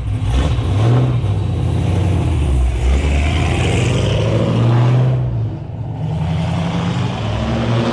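Loud car engine running with a low, steady exhaust note that swells and eases; the exhaust is judged too loud for a street car.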